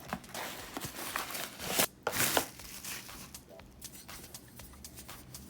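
Handling noise: crinkling rustles and scattered small clicks, with a louder rustle about two seconds in, then quieter.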